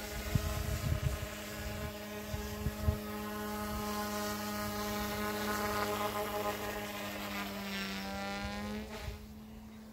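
Goosky S1 electric RC helicopter in flight: its rotors and motors make a steady, high whine. The pitch shifts near the end, and the sound gets fainter about nine seconds in.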